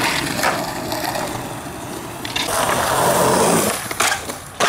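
Skateboard wheels rolling on concrete, then a louder scrape as the board grinds along a concrete ledge, followed by two sharp clacks of the board near the end.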